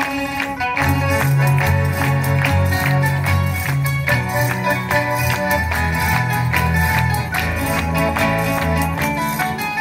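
A student tuna plays together on strummed guitars and other plucked string instruments, with a moving bass line and a steady, rhythmic strum.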